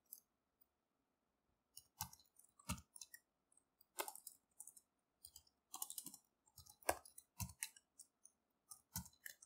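Computer keyboard being typed on: faint, irregular single key clicks with short pauses between them, as a command is keyed in.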